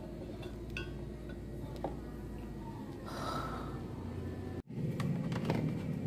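A few small clicks and knocks as parts are fitted by hand onto the washing machine's motor and pulley, over a steady low hum. About two-thirds of the way in the sound cuts briefly and a louder low rumble follows.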